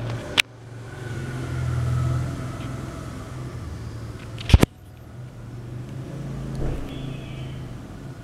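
A low, steady rumble that swells and fades about two seconds in, broken by a sharp click near the start and a double click about halfway through.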